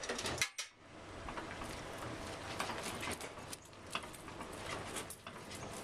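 Vintage coin-operated rocking horse ride taking a 20-cent coin and starting up: a few clicks at the start, then its drive mechanism running with a steady noise and irregular clicks as the horse rocks back and forth.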